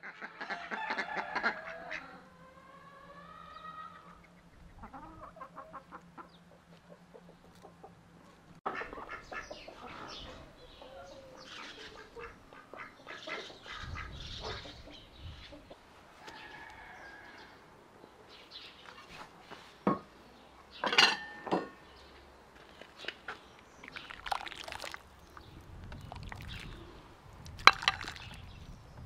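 Domestic ducks and chickens calling on and off, with the loudest burst of calls in the first couple of seconds.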